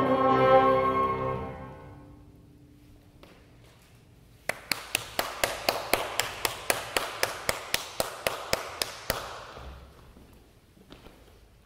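A held chord of instrumental music fades away over the first two seconds. Then, about four and a half seconds in, a quick, even run of sharp clicks, about five a second, lasts some four and a half seconds and stops abruptly.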